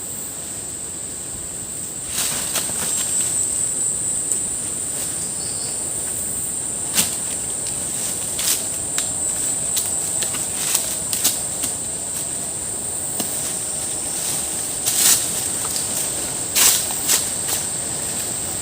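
An insect droning at one steady high pitch, starting about two seconds in, over forest background noise. A scattering of sharp clicks and knocks is heard throughout.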